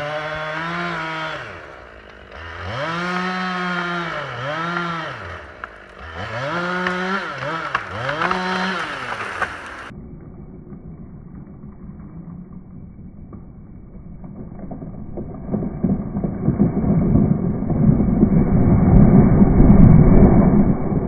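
Chainsaw revving up and down in repeated bursts for about ten seconds. Then the audio turns to a slowed-down, muffled low rumble as the ash tree comes down, building to its loudest near the end.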